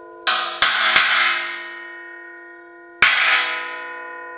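Hammer strikes on a welded steel stand: three quick blows near the start and a fourth about three seconds in. Each leaves a long bell-like ring at several steady pitches. The stand rings as if tuned, which the builder thinks comes from its top plate resonating.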